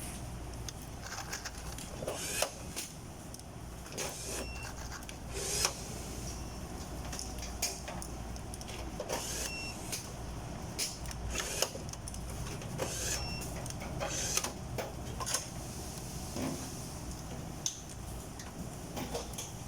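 Factory workshop noise: a steady machine hum with irregular clicks and metallic knocks, and a short high electronic beep three times, a few seconds apart.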